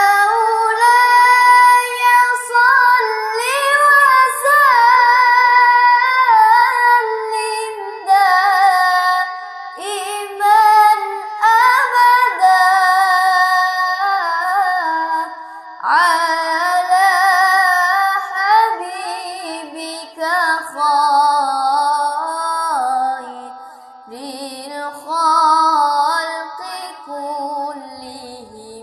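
A single high voice singing a slow, ornamented melody with wavering, gliding notes and no accompaniment. The melody sinks lower in the last third.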